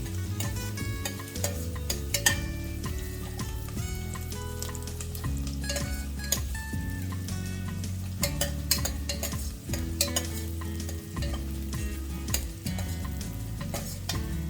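Onions frying in oil in a pressure cooker while a spatula stirs and scrapes against the metal pot. Background music with held chords plays underneath.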